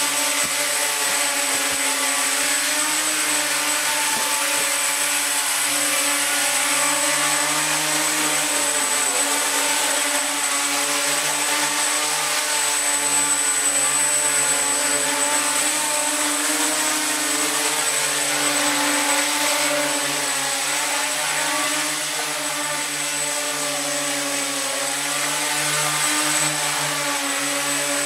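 Homemade RC tricopter in a caged carbon-fibre sphere hovering, its three electric motors and propellers buzzing steadily with the pitch wavering a little.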